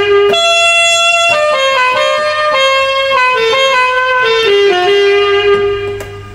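Saxophone voice of a Roland VA-7 arranger keyboard playing a melody of held notes, fading away near the end.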